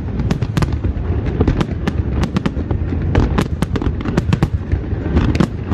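Aerial fireworks display: a rapid, overlapping barrage of sharp bangs and cracks from bursting shells, several a second, over a continuous low rumble.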